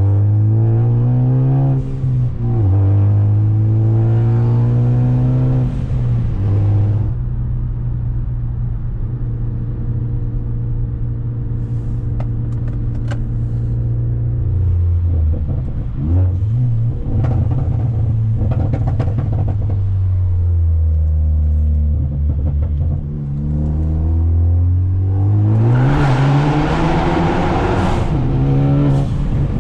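Ford Focus ST's turbocharged engine through a catless downpipe and Flowmaster exhaust, accelerating through the gears: the pitch climbs and drops back at each shift, holds steady for several seconds mid-way, then rises again in a loud hard pull near the end.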